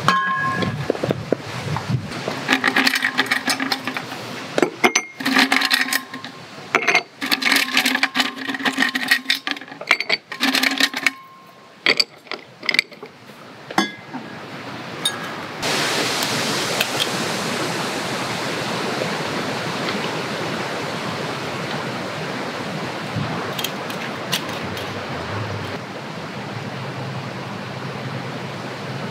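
Ice cubes clinking into a glass, a string of sharp clinks, some of them ringing. About halfway through, a steady hiss of a drink being poured over the ice starts suddenly.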